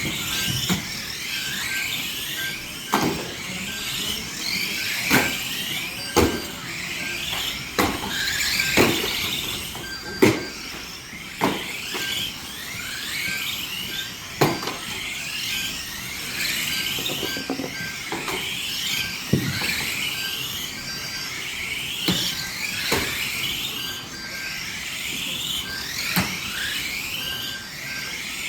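Several radio-controlled model stock cars racing: their motors whine high, rising and falling in pitch as they speed up and slow down, with frequent sharp knocks of the cars hitting each other or the track barriers.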